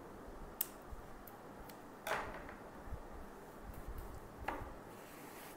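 A snip of scissors cutting a crochet thread close to the edging, about half a second in, then a few faint knocks and rustles of the cloth coaster being handled on a table.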